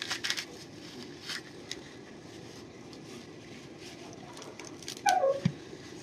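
A knife scraping and tearing the dry fibrous husk off a coconut in short scratchy rasps, with a brief falling-pitched sound about five seconds in.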